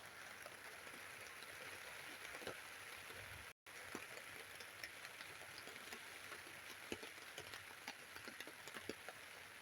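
Steady rain on a tent, a soft even hiss with many scattered drop taps. The sound cuts out for an instant about three and a half seconds in.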